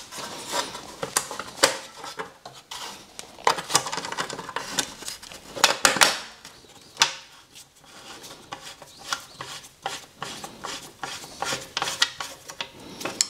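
Irregular metal clinks and short scrapes of hand tools and a screw being worked into the exhaust heat shield.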